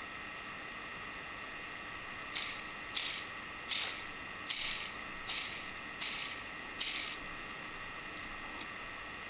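3D-printed plastic caged ball bearing being spun by hand in quick repeated turns: seven short rattling whirrs of the plastic balls rolling in their cage, about one every three-quarters of a second, each fading away quickly.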